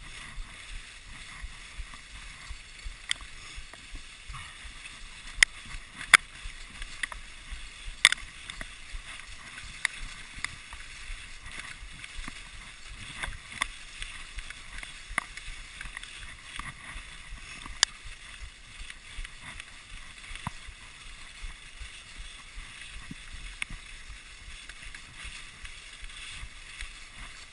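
Dog sled runners hissing steadily over packed snow, with scattered sharp clicks and knocks from the sled frame. The loudest knocks come about six and eight seconds in.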